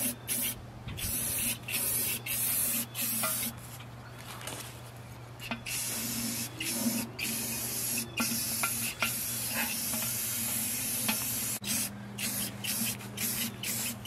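Aerosol can of clear coat spraying: a hiss in many short bursts that stop and start.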